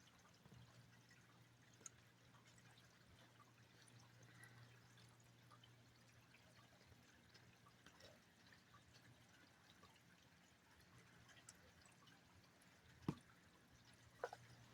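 Faint rain dripping and pattering, with scattered small ticks over a low steady hum. There is a sharper tick about 13 seconds in and another just before the end.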